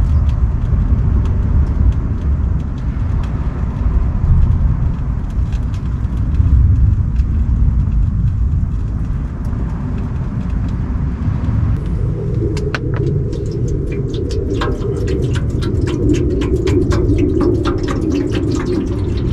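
Compressed firewood logs burning in a wood stove: a steady low rumble of the fire, joined about two-thirds of the way in by quick, sharp crackles and pops.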